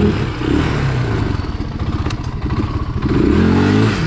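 Four-wheeler (ATV) engine revving up and down under throttle, with a strong rising rev late on that drops off sharply at the end.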